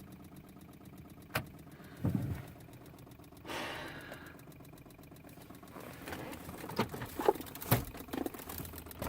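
Rapid, faint, even clicking from inside a BMW 135i that will not start, with a few louder clicks and knocks over it and a short hiss about three and a half seconds in.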